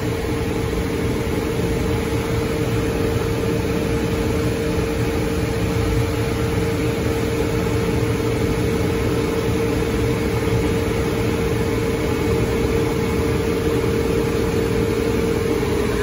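Liebert (Vertiv) computer-room air-conditioning unit running: a steady machine drone with a constant humming tone.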